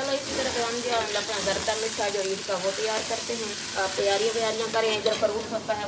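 Metal slotted spoon stirring and scraping around an aluminium wok, with a wavering squeaky pitch, while hot ghee and water sizzle and bubble in the pan.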